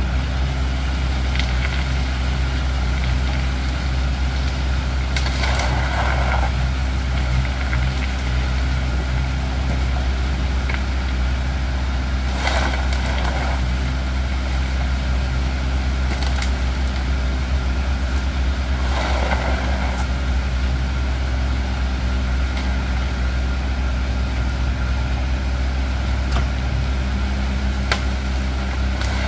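Compact farm tractor's engine running steadily at idle, a constant low hum. Three short gritty swishes of soil being shovelled or sifted, about six seconds apart.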